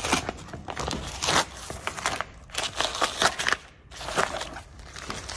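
Green painter's tape being peeled off a wooden chair seat and crumpled in the hands: a run of irregular crackling rips.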